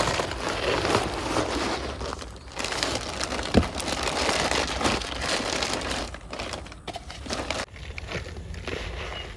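Steady rustling and crunching with a single knock about three and a half seconds in; it drops away about two seconds before the end.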